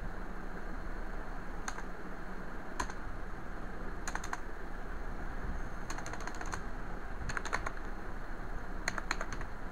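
Computer keyboard keys pressed in short groups of one to five clicks with pauses between, deleting characters from a typed email address, over a steady background hiss.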